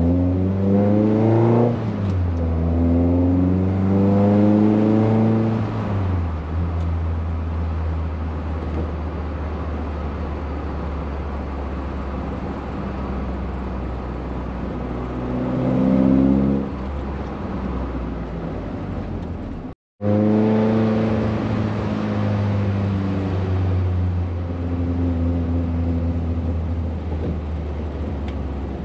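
VW Golf Mk1's 1.8-litre 16-valve four-cylinder on twin Weber carburettors and a Supersprint exhaust, pulling hard through the gears: two rising pulls with a quick shift between them, then steady running. There is another short rev about halfway through, and a further rising pull right after a brief cut in the sound about two-thirds in.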